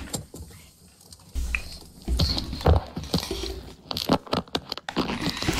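Handling noise from a phone's microphone as it is carried and jostled against clothing and skin: irregular rustling, scraping and several knocks and bumps.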